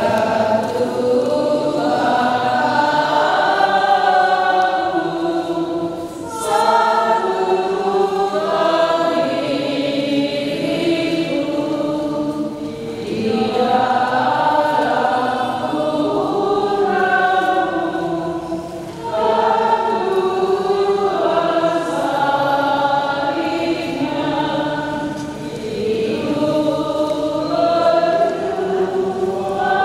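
Church choir singing a hymn in long held phrases, with short breaks between phrases about every six seconds.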